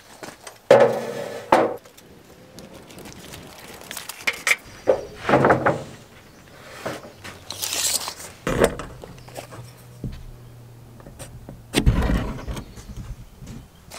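Lumber and a plywood sheet being handled and set down on metal sawhorses: several separate wooden knocks and clunks, with a short scraping hiss near the middle and a heavy low thump about twelve seconds in.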